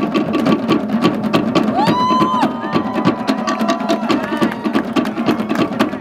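Fast, even wooden drumming, a rapid stream of sharp strokes from Polynesian log drums. A high, held shout rings out about two seconds in.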